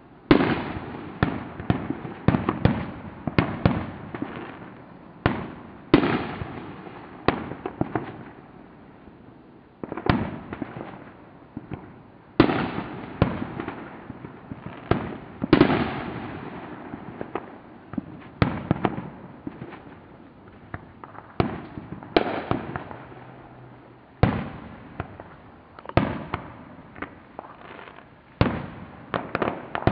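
Consumer aerial fireworks bursting overhead in an irregular run of sharp bangs, often two or more a second with short lulls, each trailing off in echo.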